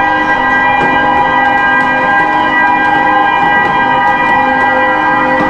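Ship's horns sounding one long, steady blast, several tones held together as a chord, saluting the ship's launch.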